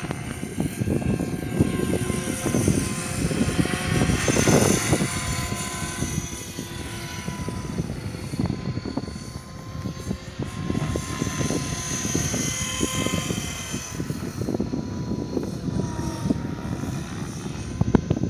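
Align T-Rex 500 electric RC helicopter flying 3D aerobatics: the motor and rotor whine rises and falls in pitch as the blades load and unload, with wind noise on the microphone underneath.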